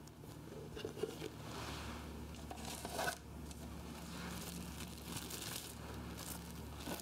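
Plastic cling film rustling and crinkling as it is spread over a baking tray, with light handling noise and a short knock a few seconds in.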